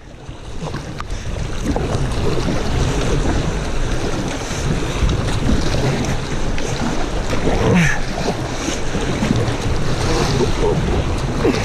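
River current rushing and splashing around a kayak, with kayak paddle blades dipping into the water and wind buffeting the microphone.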